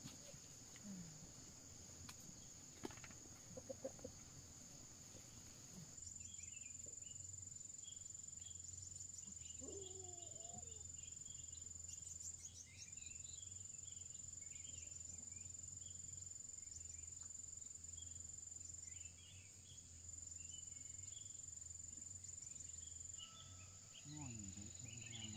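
Steady high-pitched drone of insects, with many short bird chirps over it and a couple of brief lower calls, one about ten seconds in and one near the end. The drone gets louder suddenly about six seconds in.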